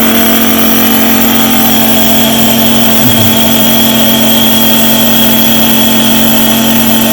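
Compressor nebulizer machine running, misting liquid medicine: a steady electric hum with a faint high whine and an even hiss of air.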